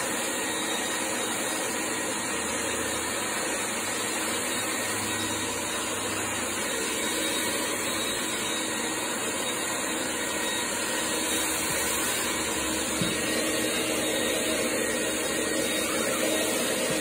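Heavy-duty wet/dry shop vacuum running steadily while picking up floor-stripper slurry from vinyl composition tile.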